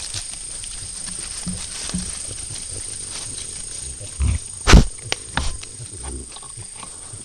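A white-lipped peccary brushing and bumping against the camera, giving low rustling and a few dull thuds, with one sharp knock about four and a half seconds in. A steady high-pitched tone runs underneath.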